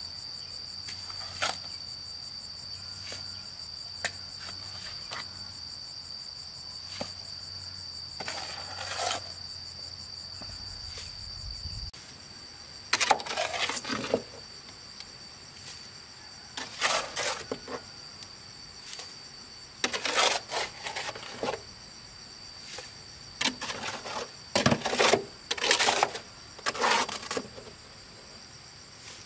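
Metal shovel scraping and scooping cement mortar in a steel wheelbarrow: a run of gritty scrapes every second or two in the second half, with a few lighter clicks before. A steady high insect drone runs underneath.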